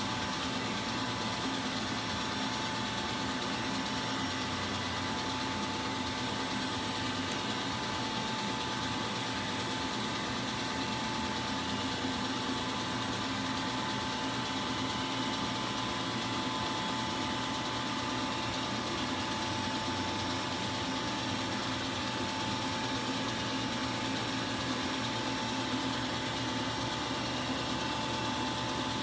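CNC milling machine running: a steady mechanical hum with a constant whine that does not change in pitch.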